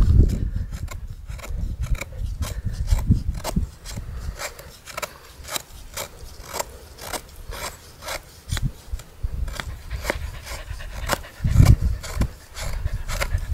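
Knife blade shaving thin curls off a wooden stick to make a feather stick, a run of short, quick scraping strokes, about two or three a second. A low rumble comes at the start and again near the end.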